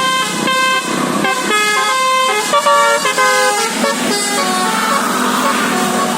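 Bus musical 'telolet basuri' air horn playing a quick tune of changing notes, stopping about four seconds in.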